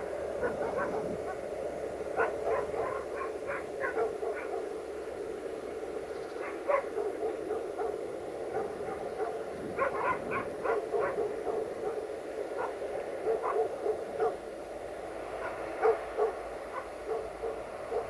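Dogs barking: a long irregular run of short barks.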